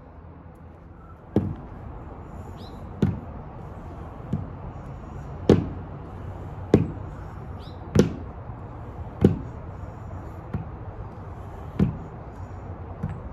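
Dumbbells clanking once per rep during bent-over dumbbell rows, a sharp metallic knock about every second and a quarter. Birds chirp faintly a few times.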